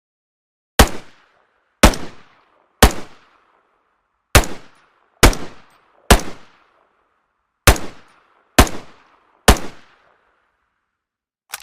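Sound effect of a Browning Automatic Rifle (BAR) firing single shots: nine separate shots spaced about a second apart, each with a short echoing tail and dead silence between them.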